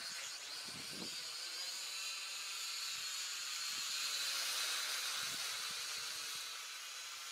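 Syma toy quadcopter flying overhead, its small electric motors and propellers giving a thin, steady high whine that grows louder toward the middle and then eases off.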